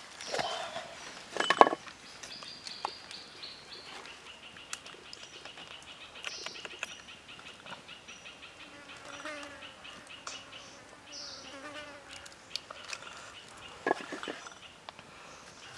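Birds and insects chirping, with a rapid high trill through the middle. Two sharp knocks from a cleaver handled on a wooden chopping board: the louder one about a second and a half in, the other near the end.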